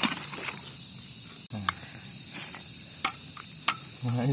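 Steady high-pitched drone of insects chirring in tropical mountain forest, a cricket or cicada chorus, with a few scattered clicks.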